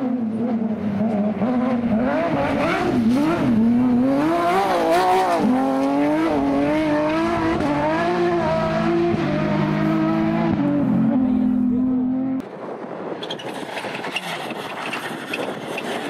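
Rally car engine revving hard through corners, its pitch climbing and dropping with throttle and gear changes. About twelve seconds in it cuts off suddenly to a quieter, more distant rally car engine.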